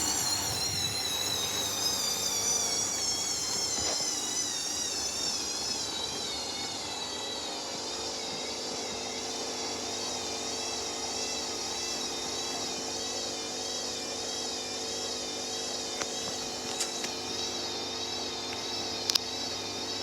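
Hoover washing machine's motor and drum running with a load of bedding: a whine whose pitch wavers up and down and falls over the first several seconds, then holds steady over a low hum. A few faint clicks come near the end.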